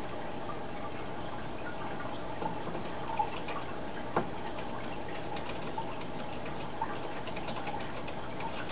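Steady hiss and hum of a running home aquarium, with scattered faint ticks and clicks and two sharper clicks about three and four seconds in.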